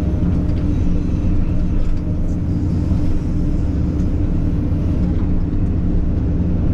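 Takeuchi TB2150 excavator's diesel engine running steadily with a low, even drone and no revving.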